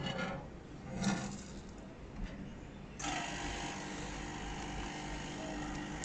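Quick Mill Rapida spring-lever espresso machine with its lever being raised. About three seconds in, a steady hiss with a low hum starts suddenly as hot water enters the group for the pre-infusion.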